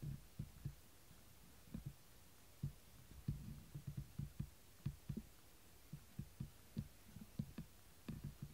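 Soft, irregular low thumps close to the microphone, several a second in uneven clusters.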